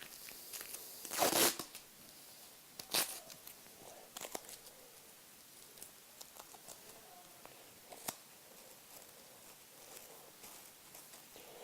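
Masking tape ripped off the roll and torn, twice, followed by light rustling and clicks of paper being handled.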